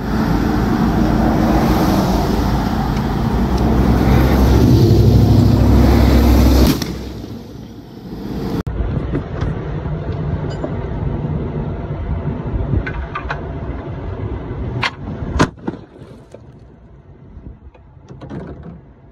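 Loud, low outdoor noise of road traffic with wind on the microphone, dropping off sharply after about seven seconds. Quieter steady noise follows, with a couple of sharp cracks about fifteen seconds in.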